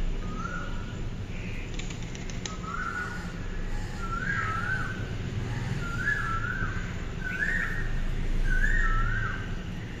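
A bird calling: a clear whistled call of paired rising notes, repeated about six times, each call coming a little sooner and louder than the last, over a steady low background hum.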